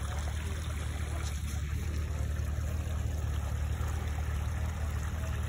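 Side-by-side UTV engines idling, a steady low rumble.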